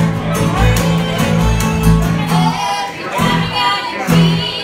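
Bluegrass string band playing live: upright bass plucking a steady beat about twice a second under fiddle, mandolin and strummed acoustic guitar. The bass drops out about halfway through, and women's voices sing in the second half.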